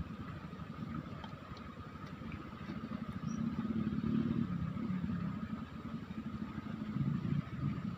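Low, uneven rumble of wind and flowing river water, swelling about three seconds in and again near the end, over a faint steady high tone.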